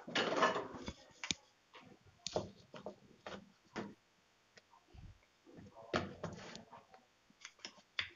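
Wooden rolling pin rolling out stiff dough on a wooden chopping board: irregular light knocks and clicks as the pin rolls and taps the board, with a louder knock and scrape in the first second.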